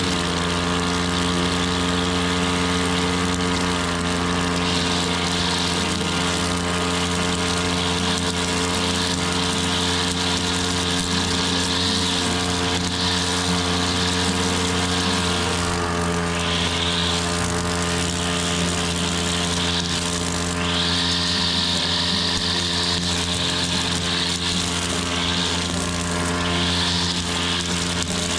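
Petrol-engined grass mower running steadily at constant speed, with a hiss that rises and falls several times over the top.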